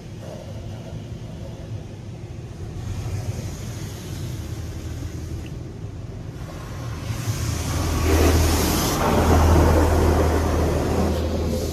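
PDQ LaserWash 360 PLUS touch-free car wash heard from inside the car. A low rumble gives way, about eight seconds in, to a loud rushing blast with a deep steady hum, typical of the wash's dryer blowers starting up.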